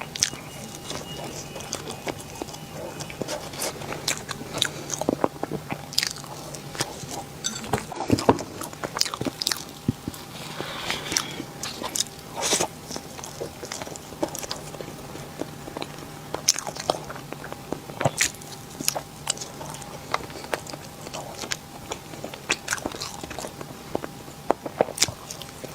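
Close-up sounds of someone biting and chewing Korean cake, with irregular sharp crunches and wet mouth clicks.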